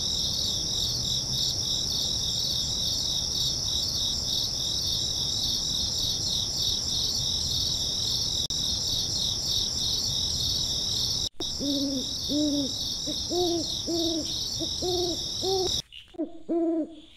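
Night chorus of crickets, a steady high pulsing chirr, joined about twelve seconds in by an owl's short hoots, each rising and falling, about two a second. The crickets cut off suddenly near the end while the hoots go on.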